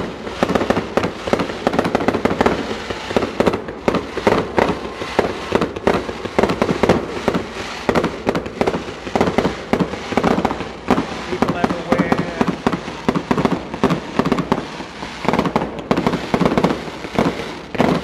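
Aerial fireworks shells bursting over and over in quick succession, a dense, unbroken run of bangs and crackles.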